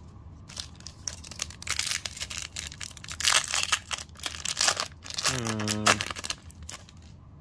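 A foil trading-card booster pack being torn open, its wrapper crinkling and crackling in a run of quick tearing bursts. Near the end comes a short low hum from a man's voice, falling in pitch.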